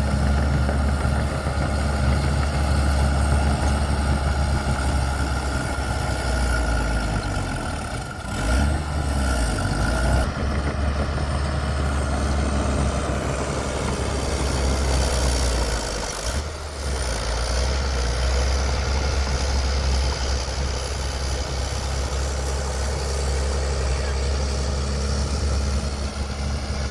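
Bulldozer's diesel engine running steadily with a deep hum, briefly dipping about eight and sixteen seconds in.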